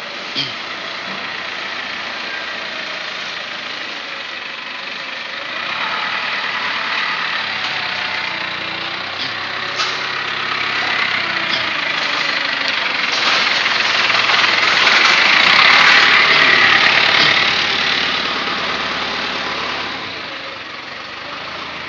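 Factory machinery running: a steady, noisy machine sound that grows louder to a peak about two-thirds of the way in, then fades, with a sharp knock near the start and a few clicks around the middle.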